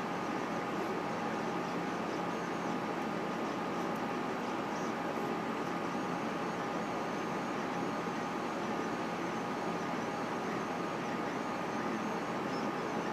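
Solidoodle 3 desktop 3D printer running a print: a steady hum and hiss with two constant tones, and a faint high whine that wavers up and down as the print head moves.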